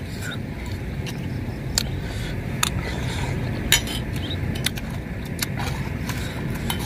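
Metal spoons clinking and scraping against metal soup bowls as two people eat: a handful of separate sharp clinks, the loudest a little before four seconds in, over a steady low background noise.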